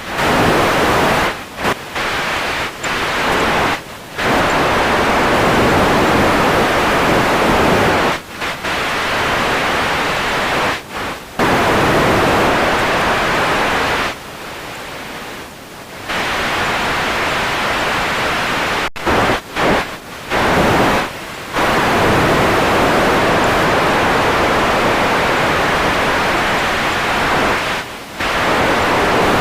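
Radio static: loud, even hiss that cuts out and drops away abruptly again and again, with short gaps and a longer, quieter dip about fourteen seconds in.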